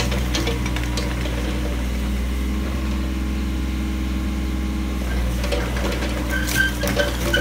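Diesel engine of a Kubota KH-014 mini excavator running steadily as the machine slews and tracks, with a few short squeaks and clicks near the end.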